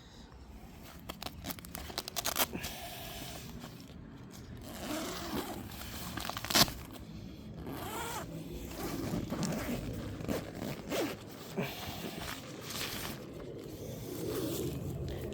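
A tent door zipper being pulled open, with the tent fabric rustling and scraping as it is handled. A sharp click about six and a half seconds in is the loudest sound.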